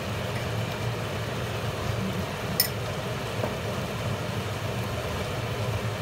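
Steady low hum in the kitchen while a pan of seafood chilli-paste stir-fry cooks on an electric hob, with one sharp click about two and a half seconds in.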